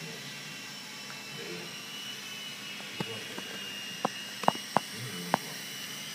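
Small electric RC helicopter flying, its motor and rotors making a steady high whine, with a handful of sharp clicks in the second half.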